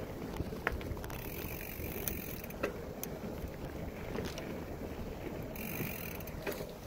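Bicycle rolling fast over a dirt trail: a steady rumble of the tyre and wind, with scattered sharp clicks and rattles from the bike.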